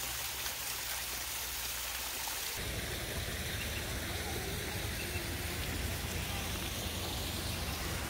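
Steady rush of running water from a small rock waterfall. About two and a half seconds in, the sound changes abruptly and takes on a deeper rumble.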